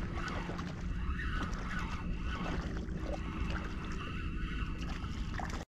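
Wind rumbling on the microphone and water around a kayak, with a faint steady hum from a spinning reel being wound in on a hooked trout. The sound cuts off suddenly near the end.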